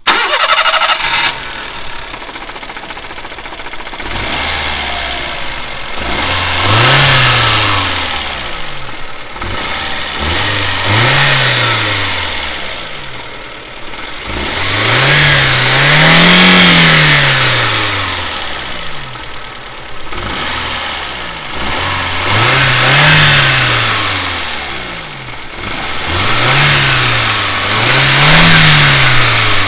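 Daihatsu JB-JL 660 cc turbocharged four-cylinder engine idling and revved in about six short blips, each rising and dropping back to idle, the longest and highest about halfway through.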